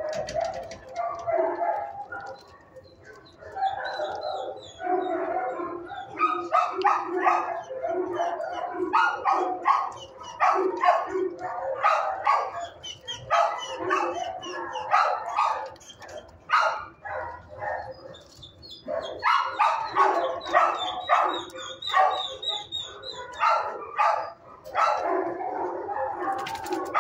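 Shelter dogs barking in the kennels: rapid, overlapping barks with brief lulls about two seconds in and again around seventeen seconds in.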